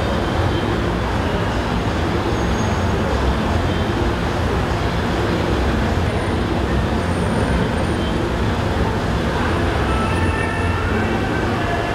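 Steady road-traffic rumble, a constant low drone with no distinct events.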